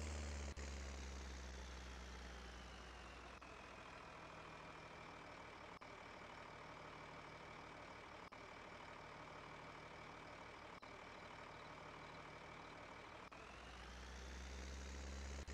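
Combine harvester's diesel engine running, with a whine above it. The revs drop about three seconds in and climb back up again near the end.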